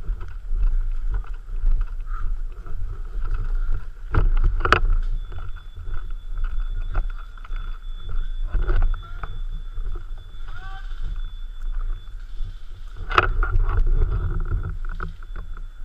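Steady low rumble of wind and movement on a body-worn microphone during outdoor play, with a few sharp knocks or cracks about four seconds in and again near the end.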